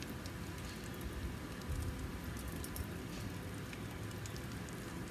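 Faint steady sizzling with scattered light crackles from the open charcoal kamado grill.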